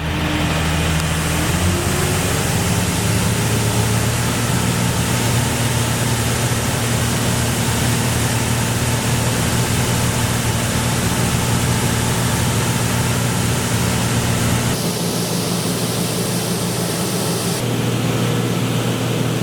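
Tractor diesel engine running hard while hauling a loaded grain trailer. It revs up over the first couple of seconds, then holds a steady, loud drone, with a change in tone near the end.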